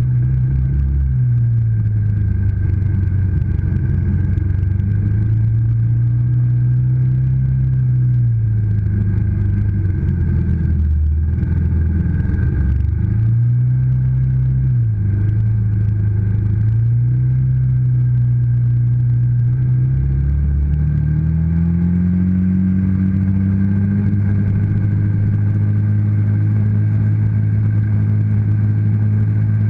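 ATV engine running as it is ridden, its pitch rising and falling several times as the throttle is worked, then climbing about twenty seconds in and holding at a higher steady speed.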